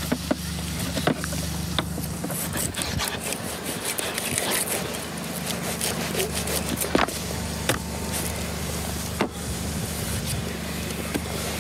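Large kitchen knife slicing through a raw cut of meat on a wooden cutting board: scraping, slicing strokes with sharp knocks of the blade against the board, over a steady low hum.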